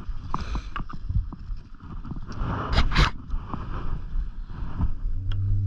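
Skis scraping and chattering over packed, chopped-up snow on a downhill run, with wind noise on the microphone; a louder skidding scrape about three seconds in.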